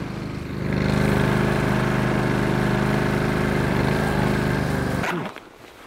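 Small engine running steadily, picking up a little about a second in, then shut off about five seconds in, its pitch dropping briefly as it dies.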